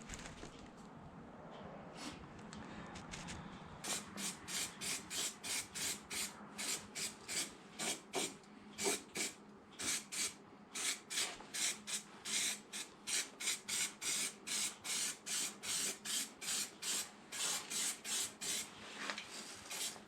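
Rhythmic rasping strokes worked by hand, about three a second, starting about four seconds in after a faint steady hiss; typical of hand-abrading a metal workpiece.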